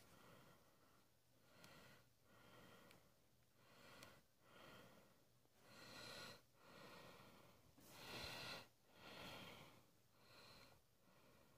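Faint breathing of a person close to the microphone, soft breaths in and out about once a second.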